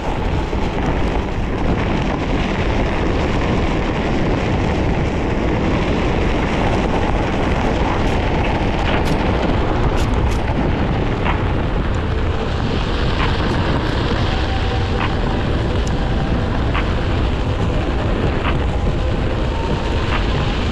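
Wind buffeting the microphone over the rolling noise of a Onewheel GT-S riding a dirt track, with scattered sharp ticks of grit and small stones and a faint steady whine in the second half.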